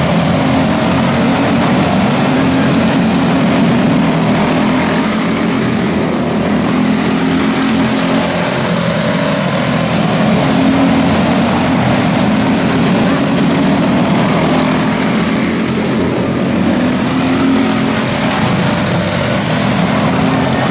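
A pack of quarter midget race cars running together, their single-cylinder Briggs & Stratton Animal engines making a steady, overlapping drone with no break.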